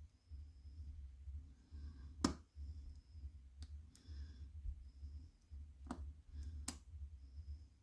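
Lock pick working inside a challenge lock: faint scraping with four sharp, small clicks spread through the few seconds, over a low handling rumble.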